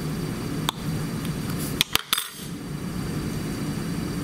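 Steel butter knife cutting through a soft lump of sodium metal and clicking against the hard surface beneath: one sharp click just under a second in, then three quick clicks and clinks around two seconds in, over a steady low hum of room noise.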